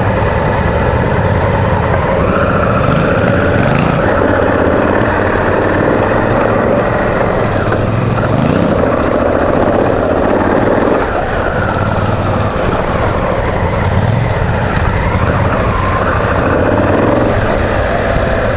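Honda Africa Twin CRF1000's parallel-twin engine running under way on a dirt track, its pitch rising and falling several times as the throttle opens and closes, over a steady rushing noise.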